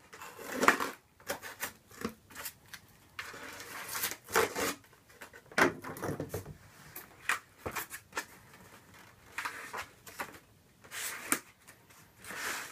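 Tape being peeled off a foam packing box and the foam pieces handled: irregular rustling, crackling and scraping with a few sharper knocks.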